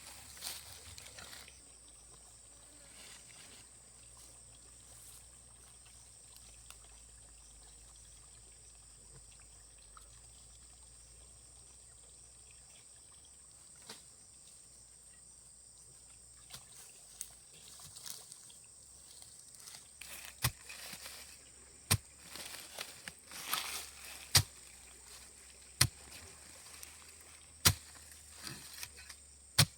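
Quiet outdoor background. In the second half comes a run of sharp knocks, about one every second and a half, like a hand tool striking during weeding or digging.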